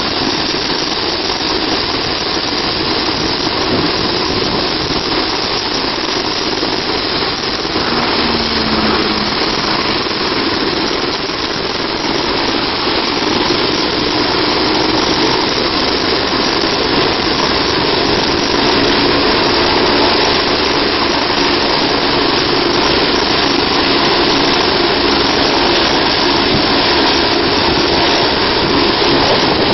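Medical helicopter running on its rooftop helipad before takeoff, a steady turbine-and-rotor noise that grows a little louder about halfway through.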